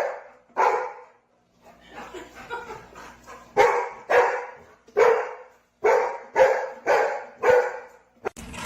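Dog barking repeatedly in short, loud barks about two a second, with a softer, quieter stretch between about two and three and a half seconds in before the loud barking starts again.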